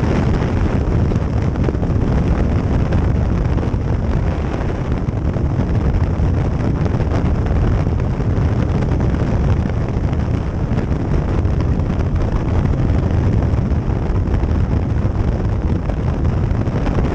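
Steady wind rush buffeting the microphone of a Kawasaki motorcycle cruising on the open road, with the bike's engine and tyre drone underneath.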